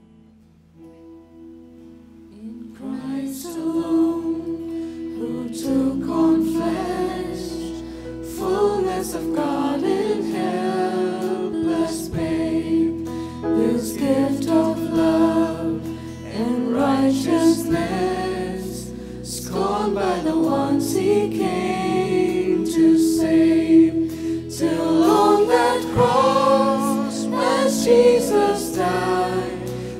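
Worship song: a group of voices singing over instrumental accompaniment with held chords and a moving bass line. It opens softly with the accompaniment alone, and the singing comes in about three seconds in.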